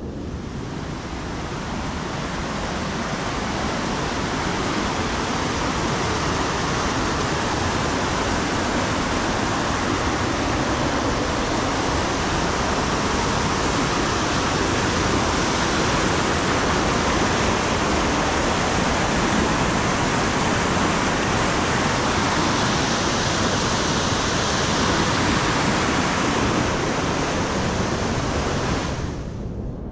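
Whitewater mountain stream rushing over boulders: a steady, loud rush of water that swells over the first few seconds and drops off just before the end.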